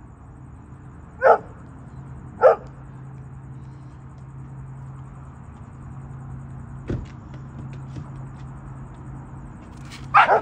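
Dog barking: two single sharp barks about a second apart, then a quick flurry of barks near the end, over a steady low hum.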